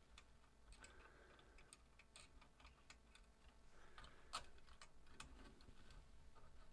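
Faint, irregular clicks and taps of small plastic and metal parts of a Commodore 1571 disk drive being handled and fitted during reassembly, with one sharper click about four and a half seconds in.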